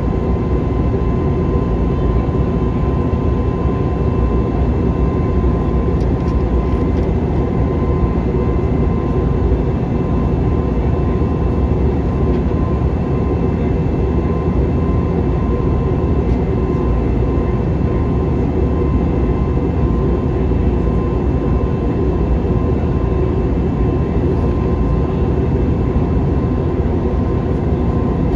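Steady in-flight cabin noise of an Airbus A321neo airliner: a deep, even rush of jet engine and airflow, with a few faint steady high tones running through it.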